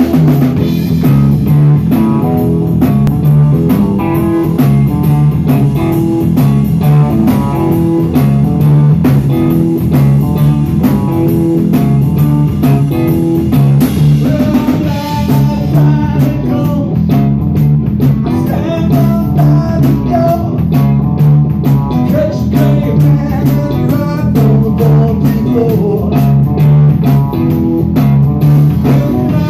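Live band playing a blues-rock song on electric guitars and drum kit, with a voice singing, loud and continuous.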